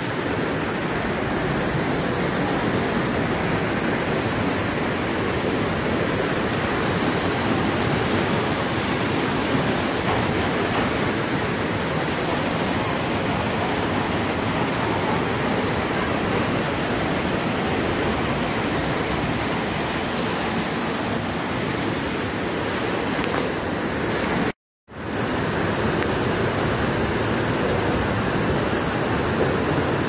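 Steady rush of water pouring down artificial rockwork waterfalls, even and unbroken. It cuts out for a moment about 25 seconds in, then resumes unchanged.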